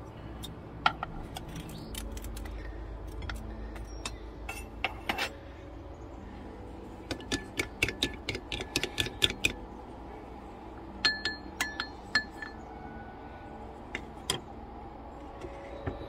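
Wooden spoon beating eggs in a small ceramic bowl: a quick run of clinks against the bowl about seven seconds in, then a few more ringing taps a little later. Scattered clinks and knocks come earlier, over a low steady hum.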